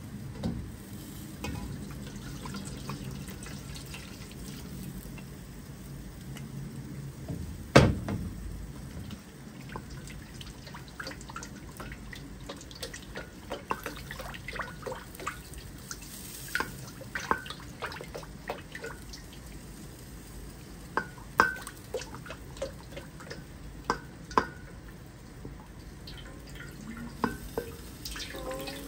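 Water dripping and splashing in a sink, with many small clicks and plinks. There is one loud knock about eight seconds in.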